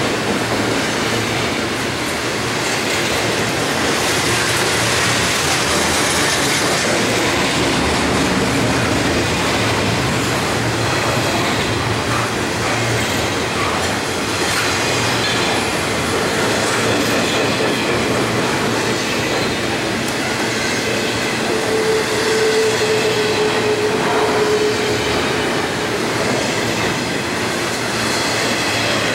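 Double-stack container cars of a BNSF freight train rolling past: a steady, loud rumble and rattle of steel wheels on rail, with a short squeal from the wheels about three-quarters of the way through.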